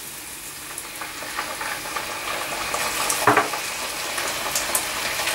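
Red onions and garlic sizzling in bacon fat in a frying pan as apple cider vinegar is poured in, the sizzle growing louder from about a second in. A short knock sounds a little past the middle.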